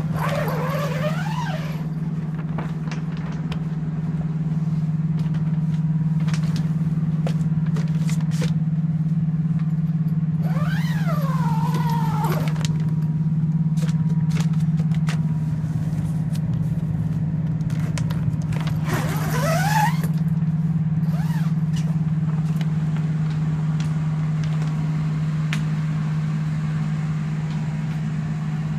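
Remediation drying and air-moving equipment (a dehumidifier and a negative-air machine) running with a steady low hum, keeping the sealed containment dry and under negative pressure. Three brief squeals that slide up and down in pitch stand out over it: one near the start, one about ten seconds in and one about nineteen seconds in.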